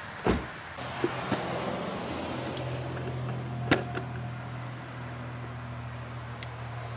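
Footsteps and knocks on old wooden boards while stepping into an abandoned wooden church: a heavy thump just after the start, a few light clicks, and a sharp knock near the middle, over a steady low hum.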